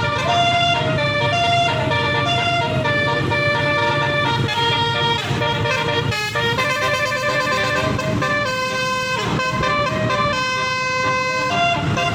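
Tour bus's multi-tone telolet horn, sounded through roof-mounted horn trumpets, playing a run of melodic notes that step from pitch to pitch every fraction of a second, with a warbling, siren-like stretch about eight to ten seconds in. A low steady rumble runs underneath.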